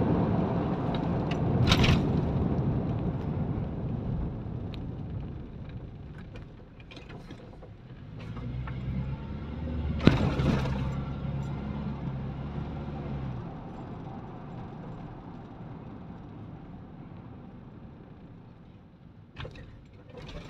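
Road noise inside a moving car: a rumble of tyres and wind that is loudest at first and fades as the car slows, with a low hum from the engine in the middle. A sharp knock about halfway through, and a few clicks and rattles near the end.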